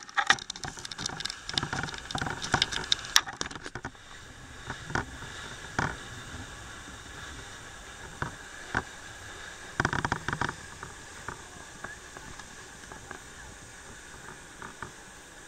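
A small passenger boat under way: a steady rush of engine and water noise, with dense, irregular cracks and knocks over the first four seconds and only scattered knocks after that.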